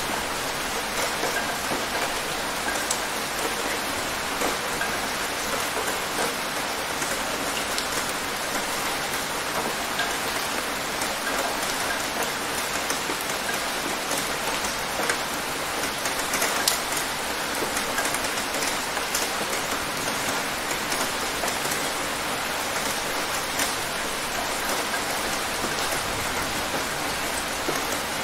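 Steady rain falling, an even hiss full of small drop patters, with a couple of sharper drop hits about halfway through.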